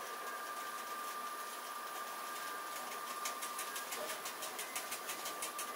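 The cab of a moving Piano Ribassato double-deck driving trailer: steady running noise with a thin, steady high tone. From about halfway through, a fast, even ticking joins in.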